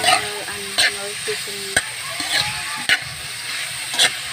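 Chopped green papaya being stirred in a frying pan: the utensil scrapes against the pan about once a second over a steady sizzle of sautéing.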